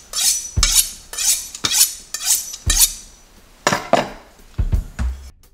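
Chef's knife being honed on a steel rod: quick metallic scraping strokes of the blade along the steel, about two a second, slowing to a few spaced strokes near the end.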